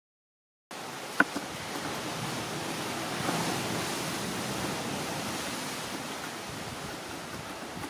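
Steady rushing background noise with one sharp tap of a chef's knife on a plastic cutting board about a second in, and a few fainter taps later as onion is chopped.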